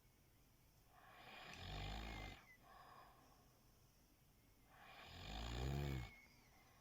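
A sleeping person snoring: two snores about three and a half seconds apart, each swelling louder over about a second and then cutting off sharply, with quiet breathing between them.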